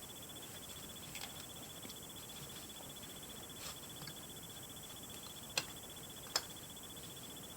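Faint clicks and taps of plastic as a Barbie doll is fitted onto a plastic doll stand, over a faint steady hiss. The two sharpest clicks come past the middle, a little under a second apart.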